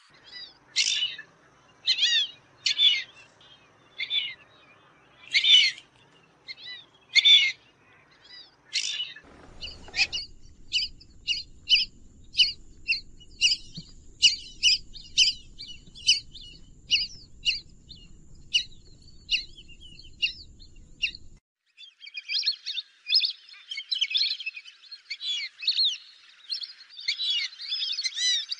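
Fulvous whistling ducks calling with high whistled notes. At first the calls come singly, about one a second. About ten seconds in the sound changes abruptly to quicker calls over a low rumble, and about two-thirds of the way through to a dense chorus of many birds calling at once.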